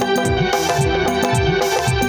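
Tabla played in a steady quick rhythm, its bass drum strokes bending down in pitch, over a sustained melody line in an instrumental passage of a Hindi devotional bhajan.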